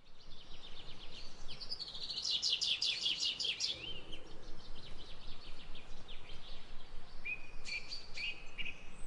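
Wild birds singing: a fast trill of rapidly repeated high notes about two seconds in, then a few short whistled notes near the end, over a faint steady background hiss.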